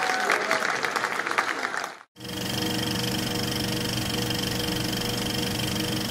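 Studio audience applauding and laughing, cut off abruptly about two seconds in. After a brief gap, a steady buzzing hum holding several fixed tones follows.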